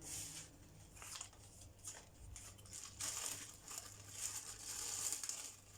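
Packaging wrap crinkling and rustling as a boxed hair dryer brush is unwrapped, in irregular bursts with a few light clicks.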